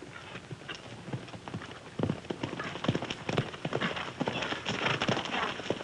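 Horse's hoofbeats on a dirt trail, a quick irregular clatter that grows louder from about two seconds in as the horse comes closer.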